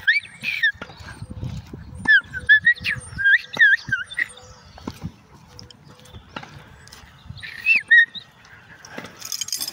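A person whistling sharp, rising-and-falling commands to a working border collie, the way a handler directs a herding dog: a run of quick whistles at the start, another through the third and fourth seconds, and a last one just before the end.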